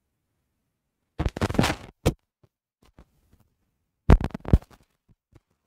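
Two short bursts of scratchy, rustling noise, one about a second in and one about four seconds in, with a sharp click after the first and a few faint ticks; the second burst starts with a low bump, like handling noise on a microphone as someone moves close to it.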